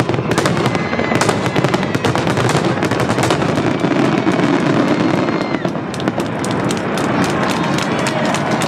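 Fireworks finale: a dense, continuous barrage of bursts and crackling shells, the crackles packing more tightly together in the last few seconds.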